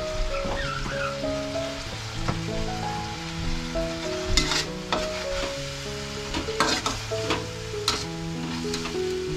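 Food sizzling in a hot metal wok as it is stir-fried with a metal spatula, with several sharp clanks and scrapes of the spatula against the pan from about four seconds in.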